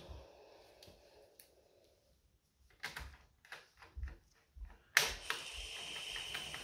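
Small clicks and taps of screws and a screwdriver being handled on the TV's sheet-metal back frame, sparse and light. About five seconds in there is a sharp knock, followed by a faint steady high-pitched sound.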